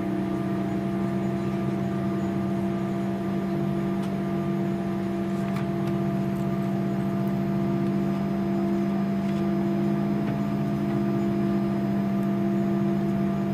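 Steady cabin drone of an Airbus A340-300 on the ground, heard from a window seat: a rushing air noise with several steady hum tones from the aircraft's air supply and machinery, plus a few faint ticks.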